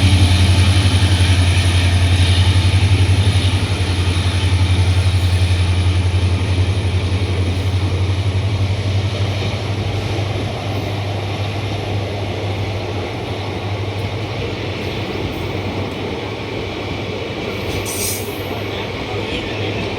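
Diesel locomotive pulling a train away, a deep steady engine hum that slowly fades as the coaches roll past. A brief high hiss comes near the end.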